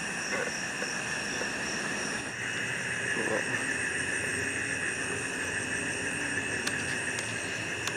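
Night chorus of insects and frogs at a flooded swamp: a steady high-pitched trilling with a few short frog calls.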